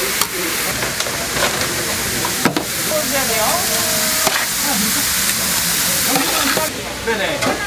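Tteokgalbi, Korean minced-beef patties, sizzling steadily as they cook, with a few sharp clicks. The sizzle thins out near the end.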